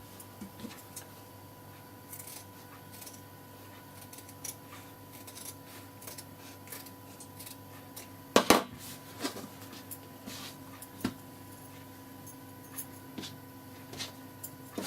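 Scissors cutting fabric in short, irregular snips, with cloth handled between cuts; a louder knock about eight and a half seconds in, over a steady low hum.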